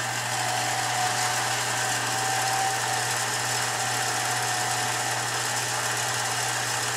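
Billiard cue lathe running at steady speed, spinning a pool cue shaft: a constant low motor hum with an even hiss, settling up to speed in the first second.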